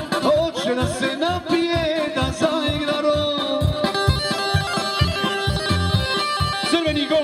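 Loud Bosnian folk music for a kolo dance, played through a big stack of PA loudspeakers: a wavering lead melody over a steady, regular bass beat.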